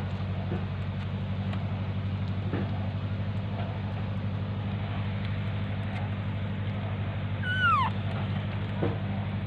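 One short, high animal cry near the end that rises slightly and then falls steeply in pitch, over a steady low mechanical hum, with a few faint taps.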